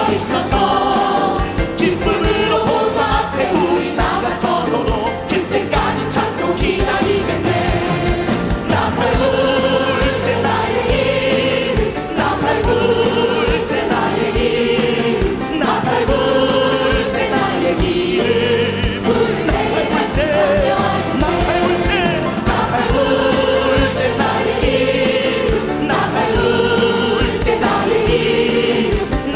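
Choir and congregation singing a Korean worship hymn together with band accompaniment and a steady beat.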